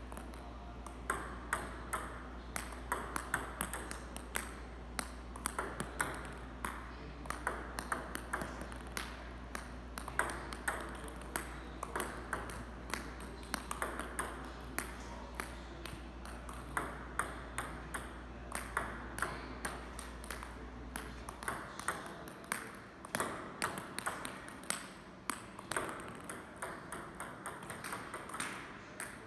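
Table tennis balls being served off a penhold racket (Butterfly Flextra rubber), ticking sharply against the racket, the table and the floor in a quick, irregular stream of clicks, a few a second. A low background hum cuts out about three-quarters of the way through.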